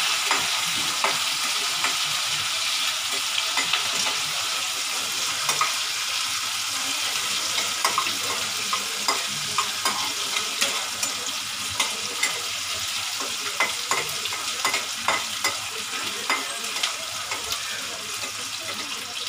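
Chopped onion and garlic sizzling in hot oil with cumin and mustard seeds, being sautéed until they turn reddish. A metal spatula scrapes and clicks against the pan as it stirs, the clicks coming more often in the second half.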